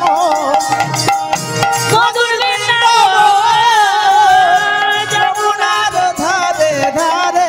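Bengali devotional kirtan music: a voice singing a wavering melody over a steady percussion accompaniment.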